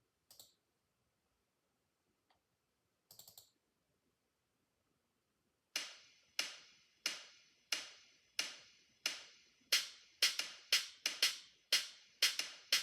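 Sharp percussive clicks of a polyrhythm. Two faint short swishes come in the first few seconds, then a steady click at about one and a half per second starts about six seconds in, each click fading quickly, and from about ten seconds a second layer of clicks joins and makes the pattern denser.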